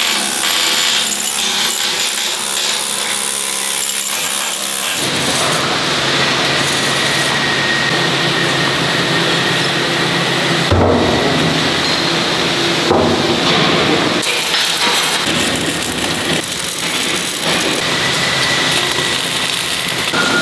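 A pneumatic slag-chipping tool chatters rapidly against steel welds for about five seconds. Then the sound switches abruptly to the steady crackling hiss of arc welding on the steel bucket, with one sharp metallic thump near the middle.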